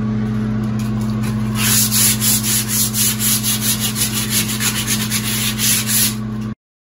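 Sanding a raw pine wainscoting board: quick back-and-forth rubbing strokes, about four or five a second, from about one and a half seconds in, over a steady low hum; the sound cuts off abruptly near the end.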